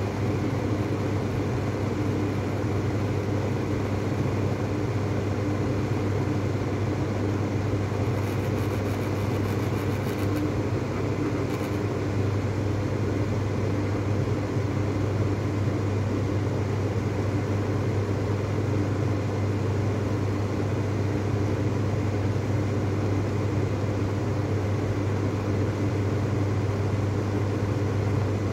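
Mistral Style 5 250 mm exhaust fan running steadily: a constant rush of air over a strong low motor hum.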